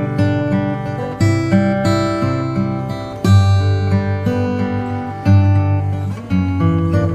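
Background music: strummed acoustic guitar playing chords, each new chord struck about every second or two.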